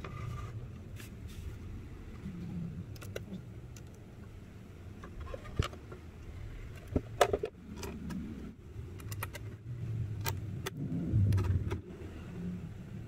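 Scattered clicks, knocks and light metallic clinks of hands handling aluminium resin 3D printer parts and small hardware on a workbench mat, over a low, uneven handling rumble. A few louder knocks come a little past the middle.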